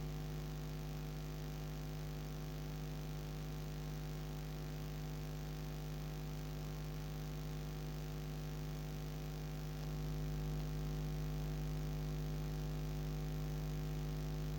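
Steady electrical hum made of several fixed tones, growing slightly louder about ten seconds in.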